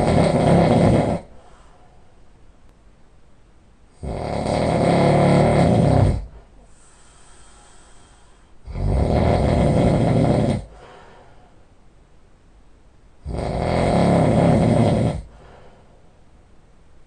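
A sleeping man snoring very heavily: four long, loud, rasping snores about two seconds each, one roughly every four and a half seconds, with fainter breathing between them.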